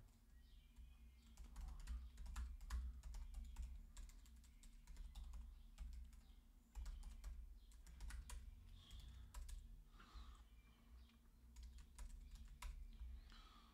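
Faint typing on a computer keyboard: irregular key clicks in short runs with brief pauses, over a low steady hum.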